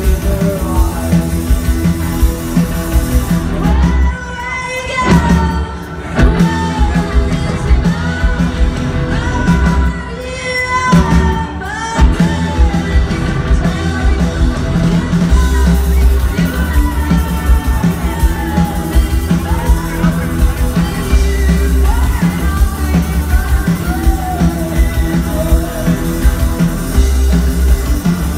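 Live rock band playing through a festival PA: a woman singing over electric bass, electric guitar and a drum kit. The band drops back briefly twice, about four and ten seconds in.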